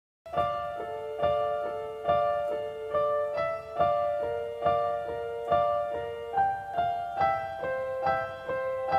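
Piano playing the slow, repeating intro of a rock ballad: an even pattern of held notes with an accented note a little under once a second, starting just after the opening moment.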